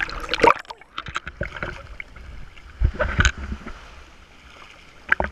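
Sea waves sloshing and splashing around a camera at the waterline, with a wave breaking into foam over it. Louder splashes come about half a second in, around three seconds and near the end.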